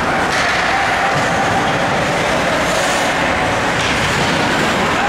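Steady ice-rink din during a hockey game: an even wash of noise with a faint steady hum running through it and no clear single event.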